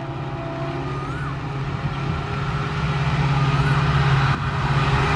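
WDG-4 (EMD GT46MAC) diesel locomotive running with a steady low engine drone that grows steadily louder as the train approaches.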